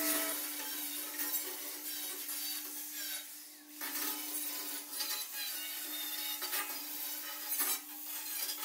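Angle grinder grinding steel: a steady motor whine under a harsh grinding rasp that swells and eases as the disc is pressed on and lifted off, with a short break about three and a half seconds in.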